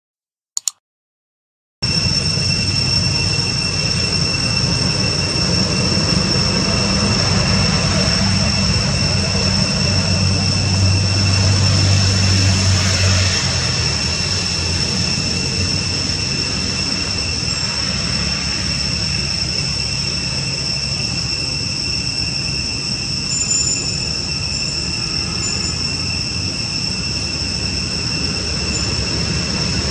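A short click, then steady outdoor background noise: a low rumble under a constant high-pitched whine.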